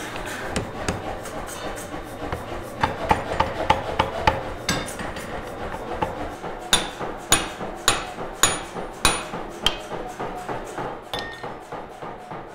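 Iron at welding heat being forge-welded. A power hammer strikes it in quick blows, about four a second. From about halfway the hammering turns to heavier ringing hand-hammer blows on an anvil, a little over half a second apart, that grow weaker near the end.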